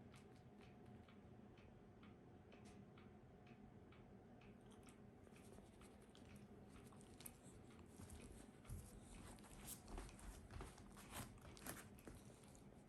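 Near silence: faint room tone with soft, irregular clicks and rustles that come more often and a little louder in the second half.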